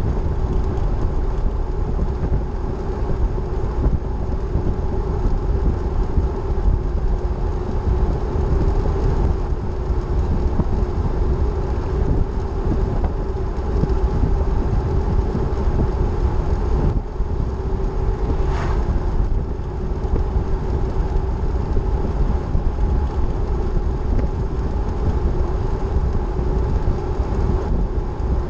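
A vehicle cruising on a paved highway: a steady rumble of road and wind noise under an even engine drone. About two-thirds through, a short whoosh as an oncoming vehicle passes.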